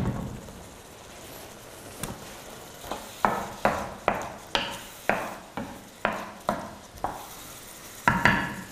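Wooden spatula stirring small whole potatoes through tomato sauce in a frying pan, scraping about two strokes a second from partway in, over the low sizzle of the simmering pan.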